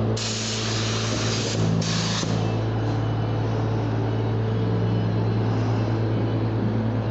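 Steady low drone of paint-booth ventilation, with two sharp bursts of air hiss in the first two seconds or so.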